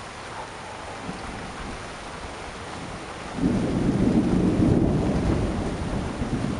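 Steady rain falling, then a loud, low rumble of thunder sets in about three and a half seconds in and eases off after about three seconds.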